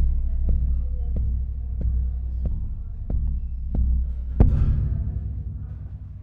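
Heavy thumps at an even pace, about three every two seconds, over a steady low rumble. A louder hit about four seconds in rings on and fades away.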